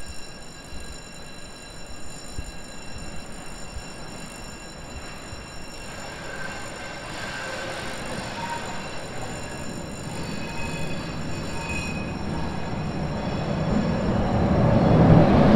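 Train wheels squealing on the rails, several thin high tones over a low rumble that grows steadily louder toward the end.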